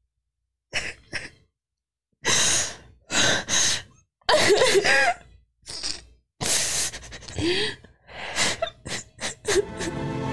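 People crying: a run of short sobbing breaths, sniffles and gasps, some with brief whimpering rises in pitch.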